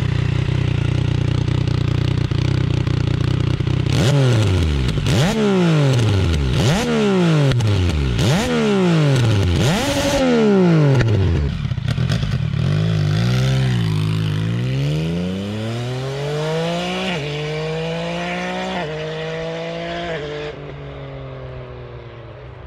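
Yamaha MT-09's inline three-cylinder engine through a Roadsitalia Double Fire titanium full exhaust with the dB-killer fitted: idling, then blipped sharply about five times. About halfway through it pulls away and accelerates, the note rising and stepping up, then fading.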